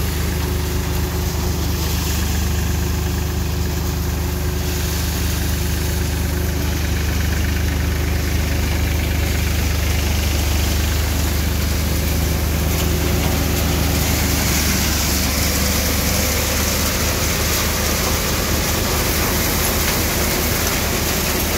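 Chakradhar threshing machine running steadily with a low engine-like hum while bean plants are fed into it. A rushing hiss over the hum grows louder about two-thirds of the way through.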